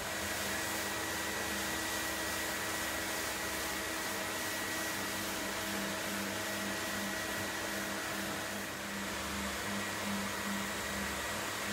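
Bona rotary floor sanding machine running steadily with a Norton Sand Dollar foam-backed abrasive disc, cutting back a coated timber floor between coats, with its dust extraction drawing through the hose. It makes an even motor hum over a steady rush of air.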